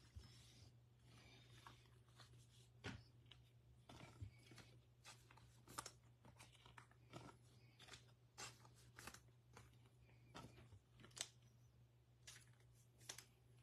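Faint, scattered clicks and rustles of trading cards being handled and set down, over a low steady room hum.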